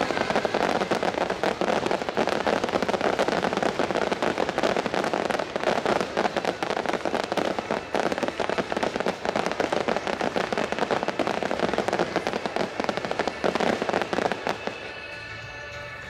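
A starmine fireworks barrage: a dense, rapid run of overlapping shell bursts and crackles that dies away about a second and a half before the end, leaving music.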